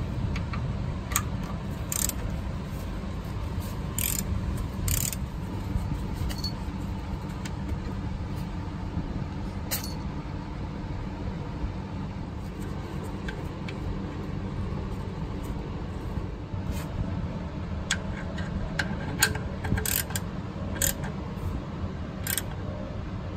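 Hand tools clicking and clinking on the oil-pan drain plug, a wrench loosening it and later a ratchet-type torque wrench tightening it, with a quicker run of clicks near the end, over a steady low rumble.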